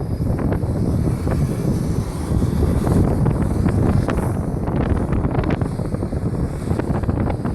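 Wind buffeting the microphone: a loud, steady low rumble with frequent short crackles from the gusts.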